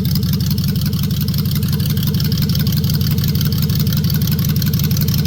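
Toyota 1GZ-FE V12 engine running steadily at idle just after a cold first start following a long lay-up, an even, fast-pulsing run with no change in speed.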